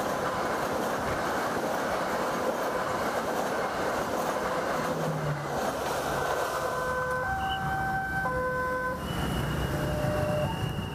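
Passenger train passing close by, a steady rush of wheels on rails. Once it has gone, from about six seconds in, electronic two-note tones alternate every second or so, with a higher steady tone near the end.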